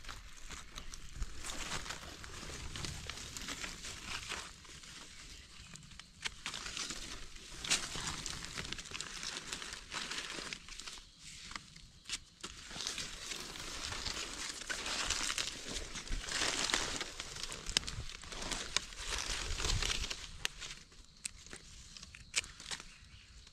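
Dry leaf litter rustling and crackling under gloved hands and a knife as mushrooms are dug out of the forest floor, in uneven bursts with sharp crackles.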